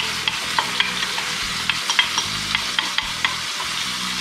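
Onions frying in oil in a wok, sizzling with a steady hiss and irregular sharp pops and crackles, about three or four a second, as chunks of tomato are stirred in.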